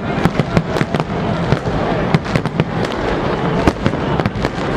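Fireworks going off in quick succession: a dense crackle of many sharp bangs and pops, several a second, over a continuous rumble of distant explosions.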